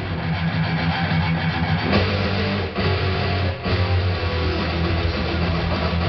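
Electric guitar playing a metal riff, with strong low notes held in a dense, steady wall of sound and two brief breaks near the middle.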